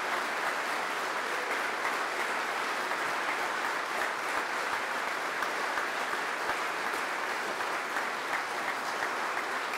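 Sustained applause from a large crowd clapping steadily.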